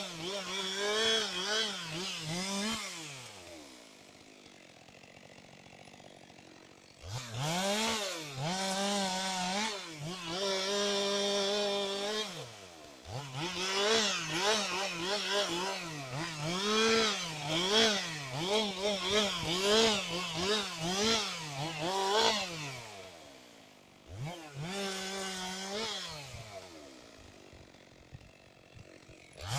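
Two-stroke chainsaw running at high revs and cutting wood, its pitch repeatedly sagging and recovering as the chain bites. It drops back to idle twice and is revved up again in between.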